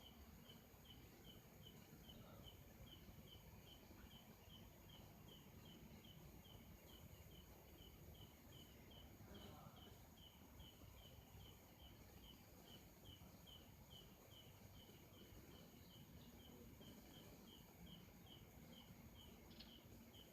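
Faint, evenly repeated short high-pitched chirps, about three a second, from a small calling animal, over low background noise.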